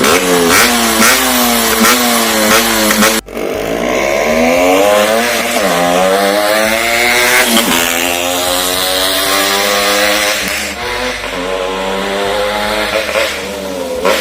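Yamaha RX-series two-stroke motorcycle engine revved again and again through a loud custom-made muffler insert built from steel pipe and square GI pipe, the revs rising and falling repeatedly. A brief break about three seconds in.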